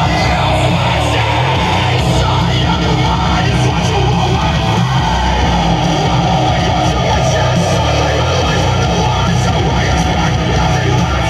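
Loud heavy metal–style song with electric guitar, played back on an iPod touch.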